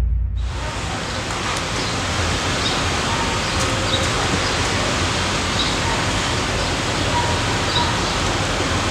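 A steady, even rushing noise, with faint short chirps every second or two.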